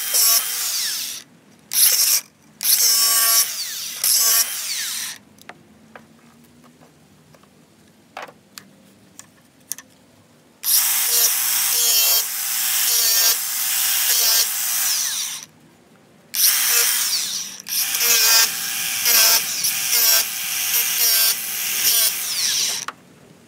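Handheld power tool run in repeated bursts on a workpiece: two short runs, then a longer one, a quiet spell, and two long runs of about five seconds each, with short stops between.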